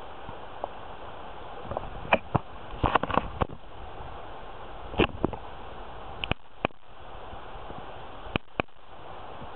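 Steady rush of a shallow river's current, broken by about a dozen sharp, irregular clicks and taps, bunched between two and three and a half seconds in and scattered after that.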